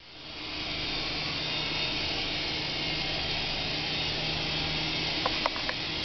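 Micro RC helicopter's small electric motors and rotors whirring steadily in flight, with a low steady hum under the hiss. A few light clicks come about five seconds in.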